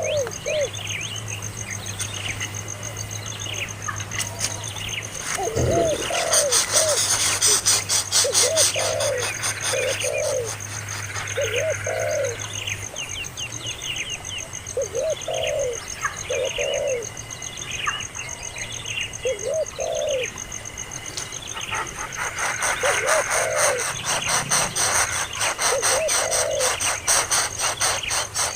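Birds calling: short, low cooing calls, often in pairs, repeat every second or two, mixed with higher chirps. Two stretches of rapid rattling come in, one a few seconds in and one near the end, over a low hum that stops about halfway.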